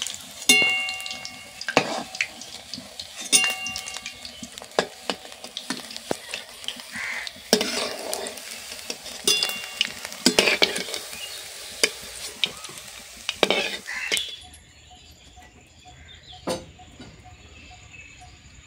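Rice vadas sizzling as they deep-fry in hot oil. A metal spoon stirs and knocks against the pan several times, and a few of the knocks ring briefly. The sizzling cuts off abruptly about fourteen seconds in.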